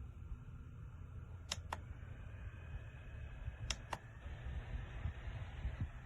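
A small desk fan running with a steady whir, crossed by three pairs of sharp clicks about two seconds apart.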